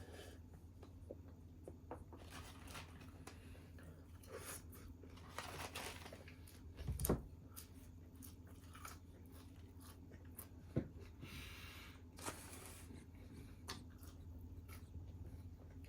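Eating sounds: soft chewing with short stretches of rustling food wrapper and scattered small clicks, and a dull thump about seven seconds in.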